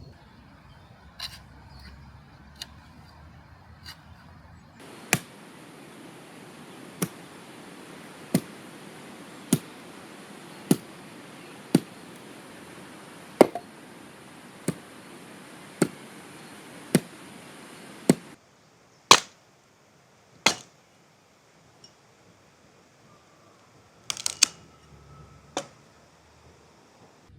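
A run of sharp knocks at a steady pace, about one every second and a bit, over a steady hiss that starts suddenly about five seconds in and cuts off about eighteen seconds in; a few more single knocks follow.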